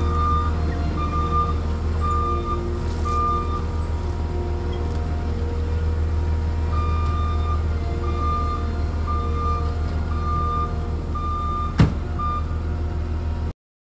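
ASV compact track loader's diesel engine running steadily, with its reversing alarm beeping in two runs as the machine backs up. There is a single sharp knock near the end, and the sound cuts off abruptly just before the end.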